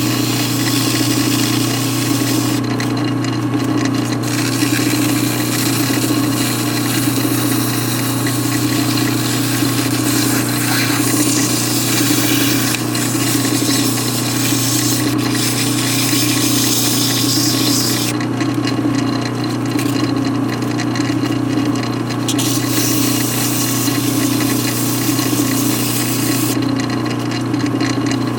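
Lathe motor running steadily while an abrasive is held against a spinning aluminium piston, a high scraping hiss that stops and resumes several times as the abrasive is lifted off and put back.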